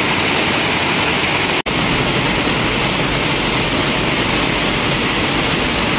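Heavy monsoon rain falling steadily: a dense, even hiss, broken by a momentary dropout about one and a half seconds in.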